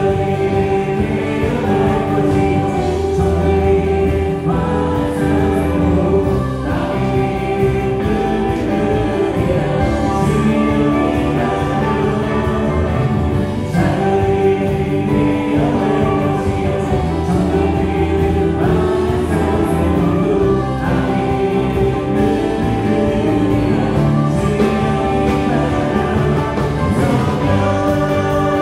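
Church praise band playing a gospel worship song: electric guitar, bass guitar, Korg Triton and Yamaha Montage keyboards and drums, with a choir singing.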